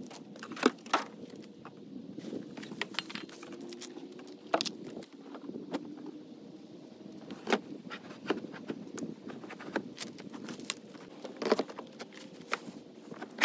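Objects being handled and moved about in a car's rear cargo area: irregular clicks, clinks and knocks, a few of them louder.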